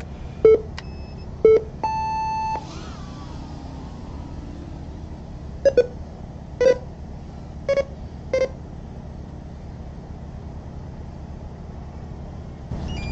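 FPV race timer's electronic start sequence: short countdown beeps about a second apart, then a longer, higher start tone about two seconds in. Later comes a quick double beep followed by three more short beeps about a second apart.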